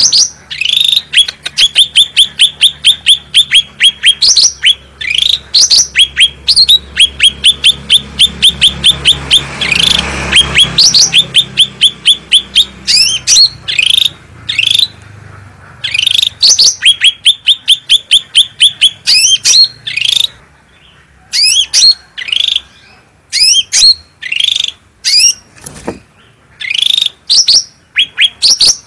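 Cucak rante songbird singing loudly in rapid runs of sharp repeated chirps, several notes a second, in phrases of a few seconds separated by short pauses.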